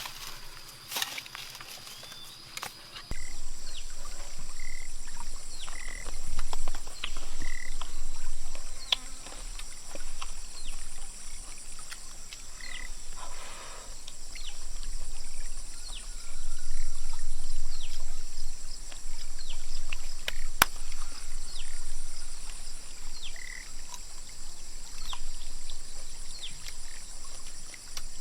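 Night chorus of insects and frogs: a steady, high insect trill with many short falling chirps and brief repeated calls over it, coming in abruptly about three seconds in.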